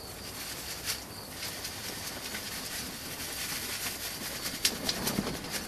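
Compost being shaken through a hand-held garden sieve onto a seed tray: a steady sifting rustle, with a couple of light knocks from the sieve.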